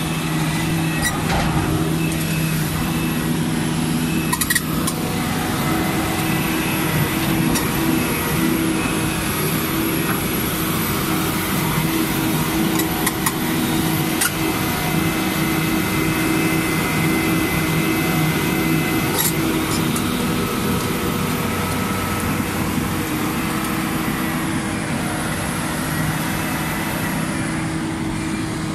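Hitachi Zaxis 350 LCN excavator's six-cylinder diesel engine running steadily with an even hum, with a few short sharp clicks or knocks.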